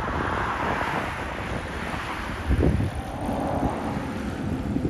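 Single-engine propeller plane flying past overhead, its engine a steady drone, with wind buffeting the microphone in low rumbles, the strongest about halfway through.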